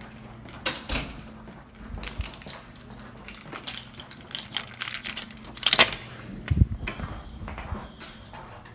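Irregular clicks and knocks from someone walking and handling things, with two louder clunks about six seconds in.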